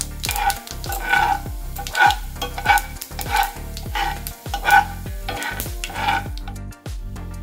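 A metal spoon stirring mustard seeds, urad dal and chana dal through hot sizzling oil in a non-stick frying pan, with about ten scraping strokes that stop near the end. This is the tempering stage, the seeds and dals frying in the oil.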